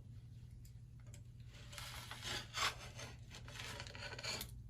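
Utility knife slicing the paper backing of drywall along a snapped crease, in several short rasping strokes that begin about two seconds in.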